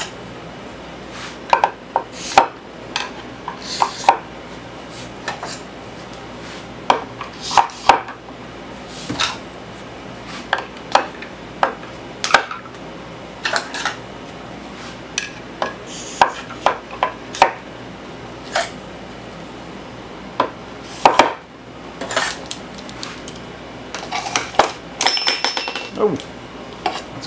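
Screwdrivers being set one after another into the holes of a wooden storage rack, making irregular sharp clacks of plastic handles and clinks of steel shafts against the board and each other. A brief metallic ring comes near the end.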